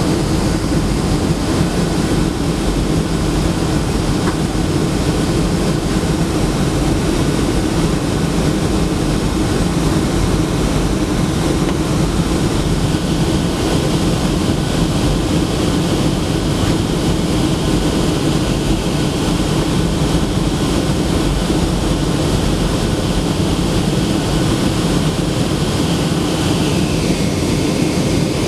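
Steady cabin roar of a Boeing 757 in flight, with the jet engine and the rushing airflow heard from a seat beside the wing. A faint higher hiss rises into it about halfway through and drops away near the end.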